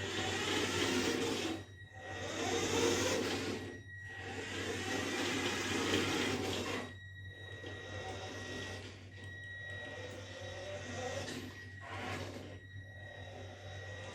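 Radio-controlled toy Mini Cooper S's small electric drive motor and gears whirring in runs of one to three seconds with short breaks as the car is driven. The rattle that the owner's steering and linkage changes have not cured is still there.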